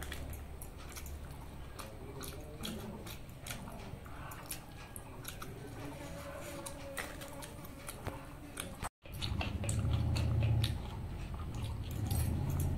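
A person eating pakhala, soaked rice, with tomato fry by hand, close to the microphone: chewing with many small mouth clicks. After a brief dropout about nine seconds in, a louder low hum comes in under the chewing.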